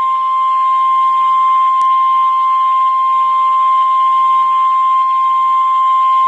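NOAA Weather Radio 1050 Hz warning alarm tone: one loud, steady, single-pitch beep held unbroken. It signals that a new weather warning is about to be broadcast.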